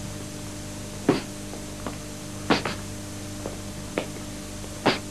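Irregular sharp slaps and thuds of full-contact sparring, from footwork on the mat and strikes landing: a handful of hits, the loudest about a second in and near the end, with one quick double hit in the middle. A steady electrical hum sits underneath.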